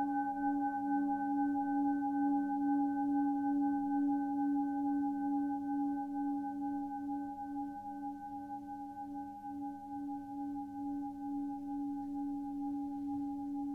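Singing bowl ringing with a steady, wavering tone of several pitches at once, pulsing slowly, and getting a little quieter in the second half.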